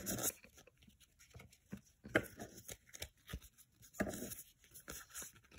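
Football trading cards being handled in a stack: soft, irregular scrapes and clicks of card stock sliding against card.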